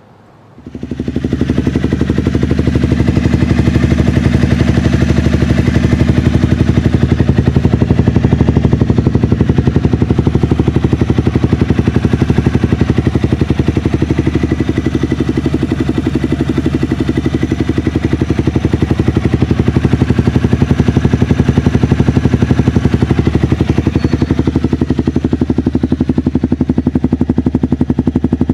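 Honda CBR 250R's single-cylinder engine idling loudly and steadily, a fast even thumping that comes in about a second in.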